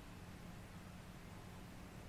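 Near silence: a faint, steady background hiss with a low hum and no distinct sound event.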